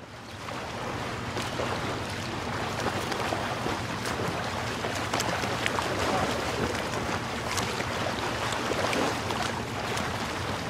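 A boat running on the water: a steady low engine hum under a wash of wind and water noise, with scattered faint clicks.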